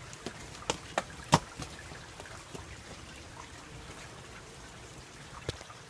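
Rain falling as a steady hiss, with a few sharp taps in the first second and a half and one more near the end.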